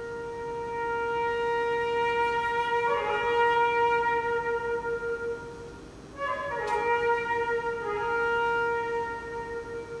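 Unaccompanied concert flute playing slow held notes with vibrato, broken by quick flourishes of notes about three seconds in and again just after a short breath a little past six seconds.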